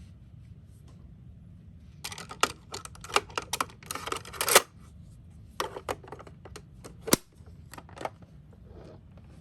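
Small toy cars being handled, clicking and clattering: a busy run of light clicks and rattles about two seconds in, then a few separate sharp clicks.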